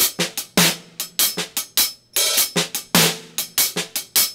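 Drum kit played with sticks in a looped half-time shuffle hand pattern, hi-hat and snare: light strokes between heavier, ringing accents about every second.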